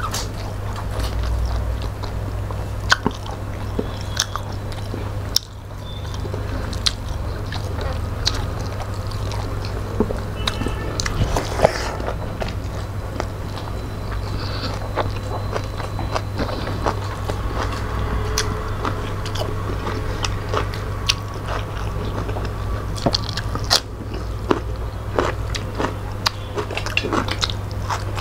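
Close-miked chewing, lip smacks and mouth clicks of people eating rice with fish and chicken curry by hand, in many short irregular sharp sounds. A steady low hum runs underneath.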